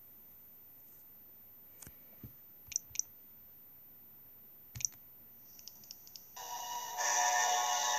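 A handful of sharp clicks from a finger working a Nintendo 3DS XL. About six seconds in, music starts playing through the handheld's small speaker and gets louder: a sped-up, high-pitched nightcore edit.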